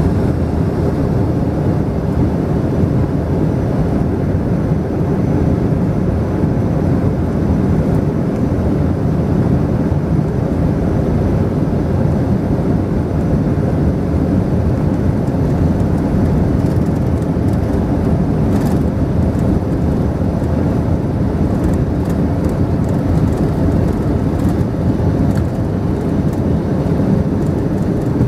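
Steady cabin rumble of a Boeing 737-300 with its CFM56-3 turbofans at taxi power, heard from a window seat over the wing as the airliner taxis.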